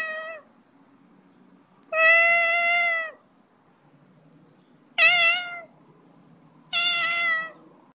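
Siamese cat meowing four times, each call drawn out for most of a second, the third wavering in pitch.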